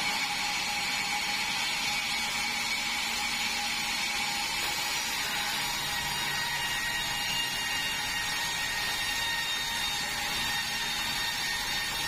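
Vertical band sawmill running steadily while sawing red meranti boards: a continuous whine from the blade and drive, with a few steady high tones over it.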